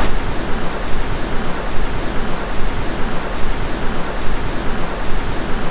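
Loud, steady hiss of television static, like an untuned analog TV, that cuts off suddenly at the end.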